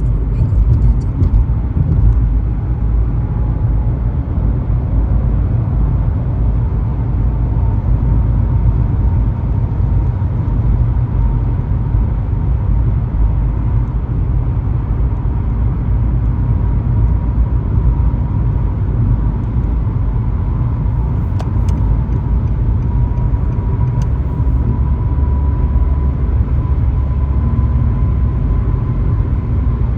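Car driving on a highway: steady road and engine rumble, with a faint thin whine that rises slightly in pitch.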